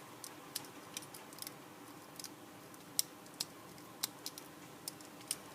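Small, irregular clicks and taps of Beyblade spinning-top parts being handled and fitted together, the sharpest about three seconds in.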